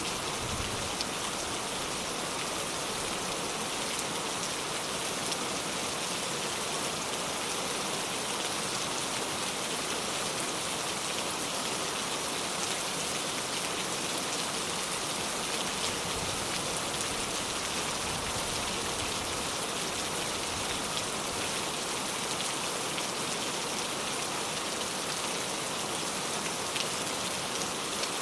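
Steady rain falling: an even, unbroken hiss with scattered faint drop ticks.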